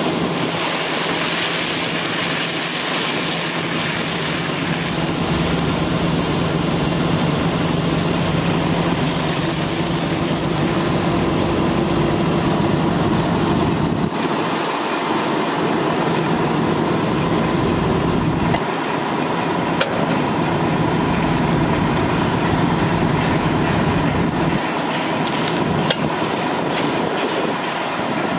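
Cummins ISL diesel engine of a water truck running steadily, driving its PTO water pump. For the first part, water hisses out of the hose nozzle. After that the engine hum carries on alone with a couple of sharp clicks as the hose is handled at the reel.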